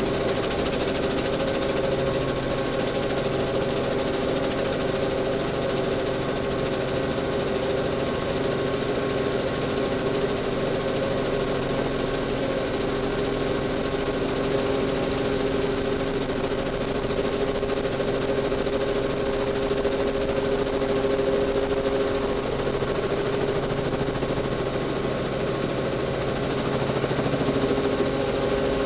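Helicopter in flight, its engine and rotor running at a steady drone heard from inside the cabin.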